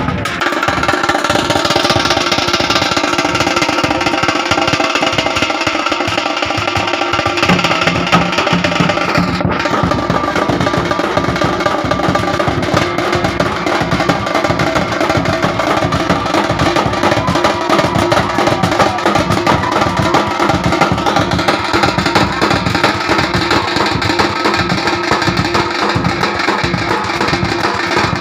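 Loud music driven by fast, dense drumming, with a steady melody held over it.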